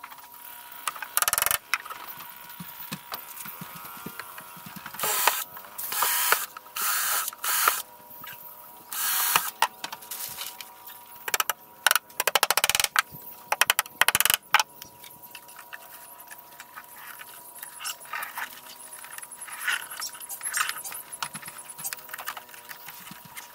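Claw hammer knocking nails into the wooden deck planks at a small boat's bow: irregular sharp knocks and short loud bursts, with a quick run of rapid blows about halfway through, then only light scattered taps.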